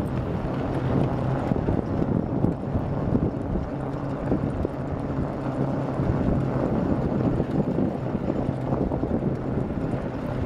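Dog cart rolling along a packed-snow trail behind a running team: a steady rolling rumble with a faint low hum running through it.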